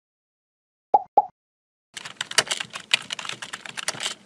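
Computer keyboard typing, a quick run of key clicks lasting about two seconds. It is preceded about a second in by two short pops.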